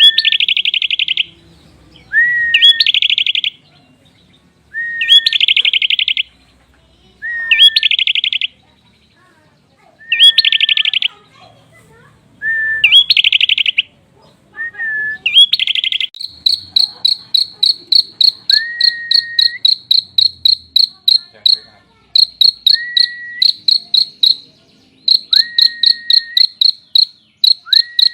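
Prinia (prenjak) song: a short rising whistle followed by about a second of fast buzzy trill, repeated every two to three seconds. About halfway through, a continuous rapid ticking trill takes over, still broken now and then by the rising whistles.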